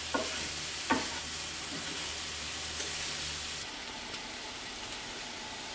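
Diced vegetables sizzling in a stainless steel frying pan as a wooden spoon stirs them, knocking against the pan twice in the first second.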